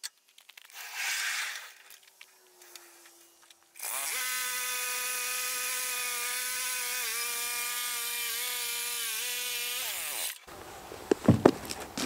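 Gas engine of a Woodland Mills HM122 portable bandsaw mill running steadily while its band blade cuts a spruce log. The pitch dips briefly a few times under load, then winds down and stops near the end. A soft scrape comes early on, and a few knocks of lumber being handled come after the engine stops.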